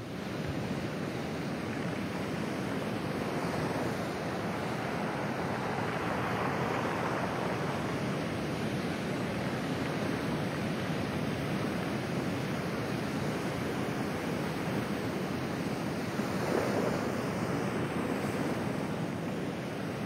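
Pacific Ocean surf breaking and washing over a pebble beach: a steady, continuous rush of water, with one slightly louder surge near the end.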